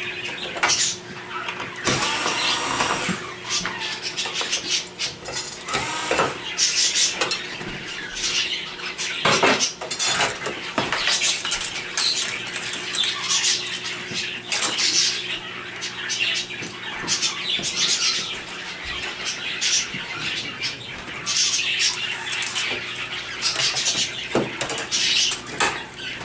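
Cordless screwdrivers whirring in short runs as screws come out of the TV's sheet-metal back and stand brackets, mixed with clinks and rattles of metal parts and circuit boards being handled on the steel panel.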